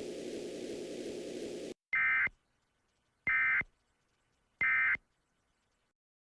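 Emergency Alert System end-of-message signal: three short, identical bursts of SAME digital data screech, a little over a second apart, marking the end of the alert. A low steady hum comes before the first burst.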